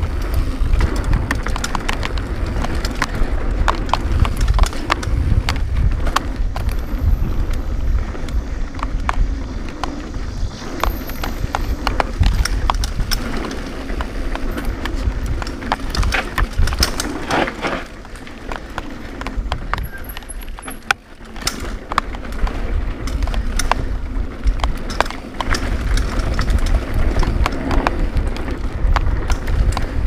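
Cannondale Claymore mountain bike running fast down a dirt singletrack: tyres rumbling over the ground, wind on the microphone, and constant rattling and clacking over the bumps, the chain slapping about with no chain guide fitted.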